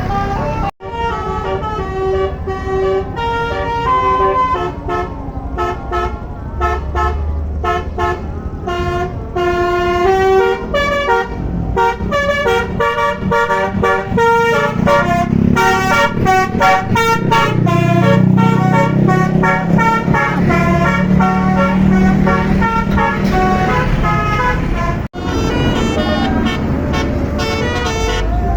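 A tour bus's Basuri telolet horn playing a rapid melody of short, stepped notes; a bus engine runs beneath it, strongest in the middle.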